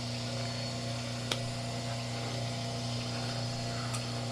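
Cable-stripping machine running with a steady motor hum, with two light clicks, one about a second in and one near the end.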